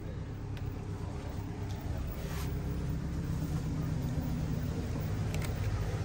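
Steady low engine hum, growing slightly louder, with a few faint clicks over it.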